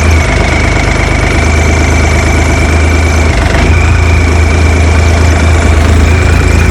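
Mini excavator's water-cooled diesel engine running steadily, with a steady high whine over its low hum. The engine note and the whine both dip briefly about halfway through.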